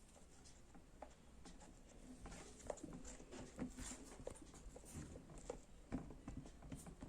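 Faint, irregular soft clicks and sticky scrapes of thick shaving-foam slime being mixed in a bowl.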